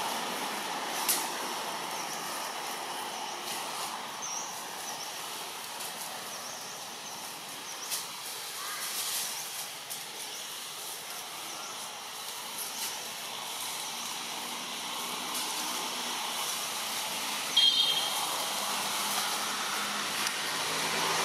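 Steady forest background hiss with a few faint clicks and rustles. A short high-pitched call stands out about three-quarters of the way through.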